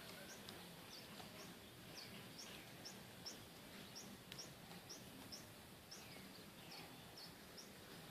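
A small bird chirping: faint, short, high chirps that slide downward, repeated about twice a second over a low steady hiss.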